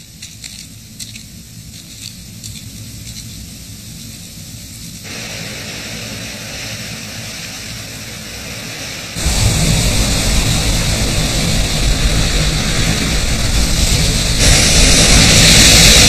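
Faint hiss of still air at first, then, about nine seconds in, the sound jumps to a loud, steady rush of surf breaking on a rocky shore, which grows louder again near the end as waves crash in spray.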